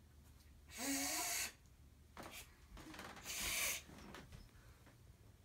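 A person breathing out hard near the microphone, twice: about a second in, a breathy exhale with a little voice in it, and just past three seconds a longer hiss of air.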